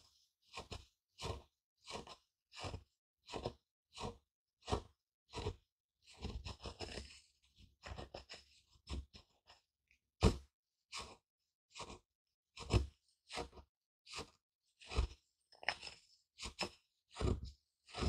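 Wooden pestle crushing dry ground food in a wooden mortar. Short crunching strokes come at a steady rate of about one and a half a second, with a longer stretch of continuous scraping grind about six seconds in.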